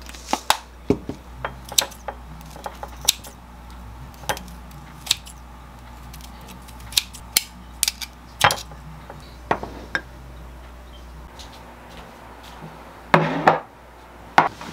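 Kitchen scissors snipping chunks of radish kimchi in a ceramic bowl: a string of sharp snips and clinks at irregular intervals. Near the end a louder knock and scrape as dishes are set down on a table.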